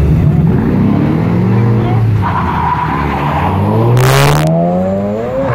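Cars launching from a street-race start, their engines revving hard and climbing in pitch several times with short drops between. About four seconds in, there is a brief loud rush of noise as the black Mazda RX-7 passes close by.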